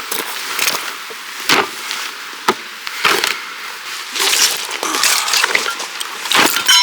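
Irregular cracking and snapping of wood, a dozen or so sharp snaps at uneven intervals with rustling between.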